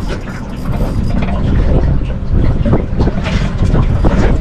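Wind buffeting the microphone on a small boat, a loud low rumble with scattered short knocks and splashy noises.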